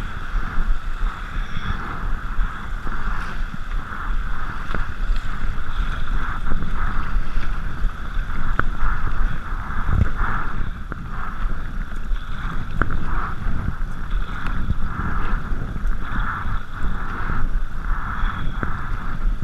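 Kayak paddling through fast, choppy river water: the paddle blades splash in an irregular rhythm and the water rushes and slaps against the hull, with wind rumbling on the microphone. One heavier knock comes about halfway through.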